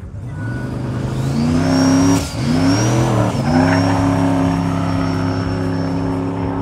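Small open-wheeled dragster's engine accelerating hard off the drag-strip start line. The note climbs, drops sharply about two seconds in and again about a second later at the gear changes, then holds high and steady as the car pulls away. A thin high whine sits above the engine.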